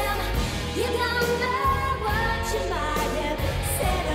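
Pop song with a singing voice over a steady bass line.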